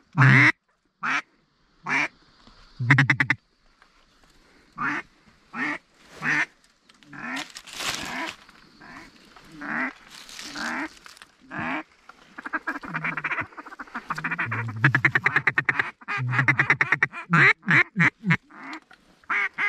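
Mallard-style quacking: loud single quacks spaced a second or so apart, growing into a dense, rapid run of quacks in the second half.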